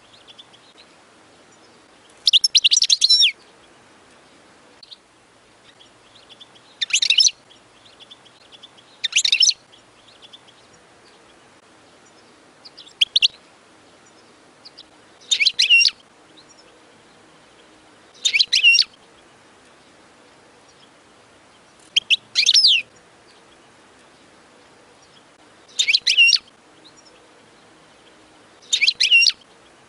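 European goldfinch singing: short twittering, high-pitched song phrases of about a second each, repeated every two to four seconds.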